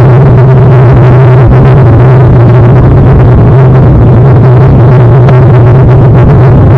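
Loud, steady riding noise picked up by a camera mounted on a moving bicycle: a constant low hum with a rough rushing noise over it, recorded at full level and distorted.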